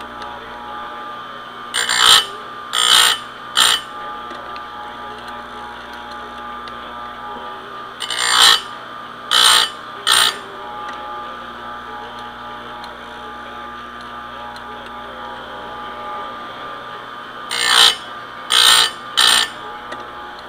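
Electric chainsaw-chain grinder running steadily with its motor hum, while the grinding wheel is brought down onto the chain's cutter teeth in three sets of three short, loud grinding bursts: about two seconds in, about eight seconds in, and near the end.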